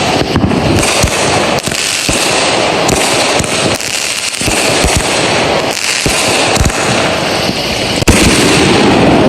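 Consumer fireworks firing in quick succession: a dense, continuous hiss and crackle studded with many low booms, growing louder a little after eight seconds in.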